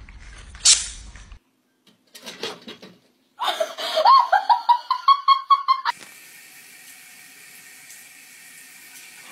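A loud voice-like sound rises in pitch and breaks into rapid pulses for a couple of seconds, then a bathroom faucet runs steadily into a sink.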